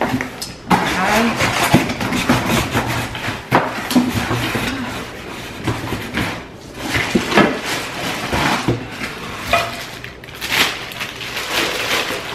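Cardboard box flaps and plastic wrapping rustling and crinkling as a skillet is pulled out of its packaging, with a few sharp knocks from handling the box.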